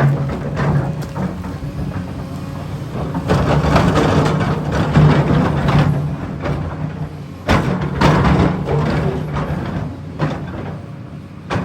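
Kobelco 380 excavator's diesel engine running steadily, with repeated bursts of scraping and clattering as the machine works material, and a few sudden knocks.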